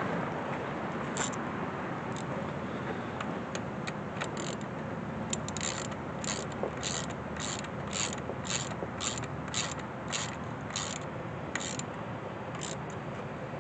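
Socket ratchet wrench clicking as a bolt is run in. A few scattered clicks come first, then a steady run of about two clicks a second through the middle, tapering off near the end.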